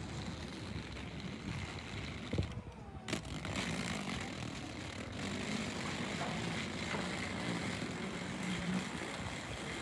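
Street ambience: a steady hum of car traffic along a town avenue, with a few small knocks.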